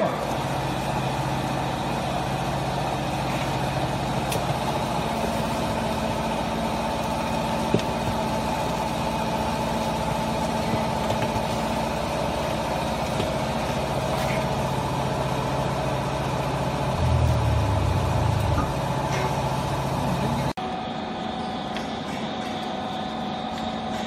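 Hydraulic power unit of a vertical household baler, with electric motor and pump, running with a steady hum while the ram presses the load. Near the end it grows louder and deeper for about a second and a half, then cuts off suddenly about 20 seconds in.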